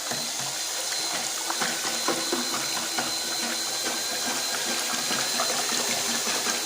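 Liquid sloshing as diluted self-leveler primer, one part primer to one part water, is stirred slowly, with small scattered ticks and knocks.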